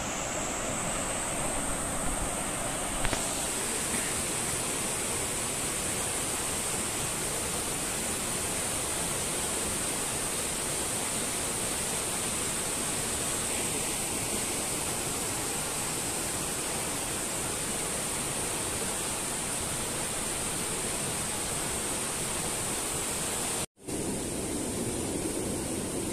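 Steady rush of a shallow, rocky river flowing over stones, an even hiss of water with no breaks except a momentary cut-out near the end.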